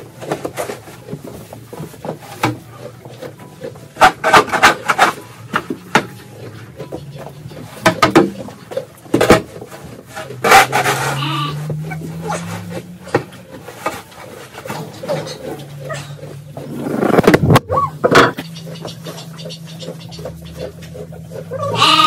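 Metal shovel scraping and knocking on the floor of a straw-bedded horse stall during mucking out, in bursts a few seconds apart, with straw rustling. A low steady hum comes in about halfway.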